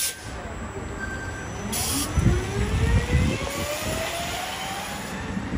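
Proterra BE40 battery-electric bus pulling away, its electric drive motor whining steadily upward in pitch as it accelerates. A short hiss of air comes just before the whine starts.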